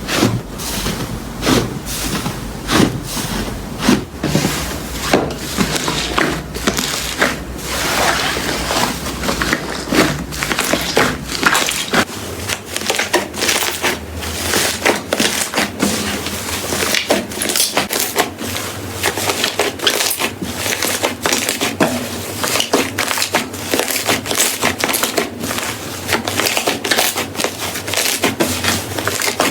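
Slime being squished and poked by hand, giving a dense, irregular stream of crackles, pops and squelches.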